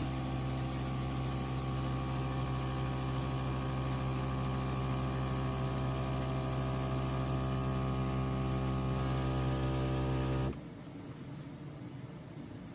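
De'Longhi Dinamica Plus bean-to-cup espresso machine humming steadily as it starts up after being switched on. The hum cuts off suddenly about ten seconds in.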